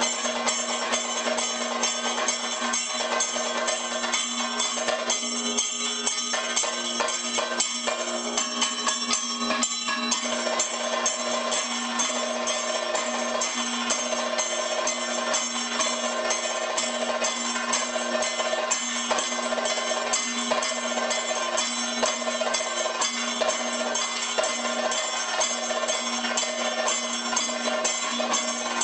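Kathakali percussion accompaniment: dense, rapid drum strokes over the steady ringing of metal cymbals and gong.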